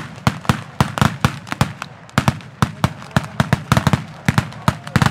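Mascletà: strings of firecrackers hung on cords going off in rapid, irregular succession, about six or seven sharp bangs a second with no letup.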